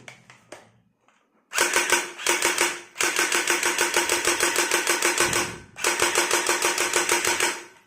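Toy M416 rifle firing in three long runs of rapid shots, each a fast, even rattle, starting about a second and a half in.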